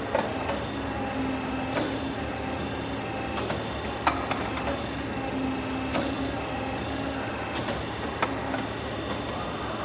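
Downspout forming machine running with a steady hum, broken by short hissing bursts about every two seconds and a few sharp metallic clicks.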